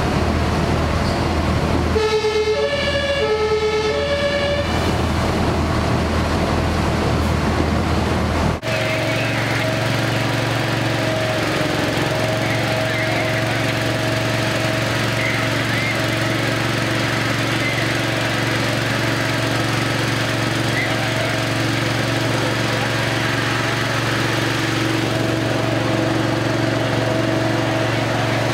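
An ambulance pulling away, briefly sounding its German two-tone siren (Martinshorn) through about two high–low cycles. After a sudden cut, a small petrol engine runs steadily, the fire brigade's portable high-performance smoke-ventilation fan blowing smoke out of the building.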